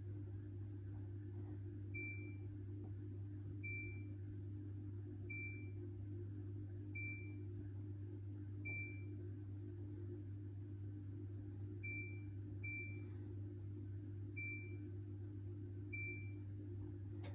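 Hoover H-Wash 600 washing machine's control panel beeping: nine short high beeps about every one and a half seconds, with a longer gap midway and two in quick succession later on, as the program selector is stepped through, over a steady low hum.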